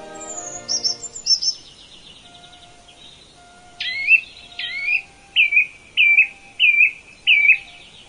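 Songbirds calling: a few sharp high chips and a brief trill in the first two seconds, then one bird repeating a loud slurred whistled phrase six times, about one every 0.7 seconds.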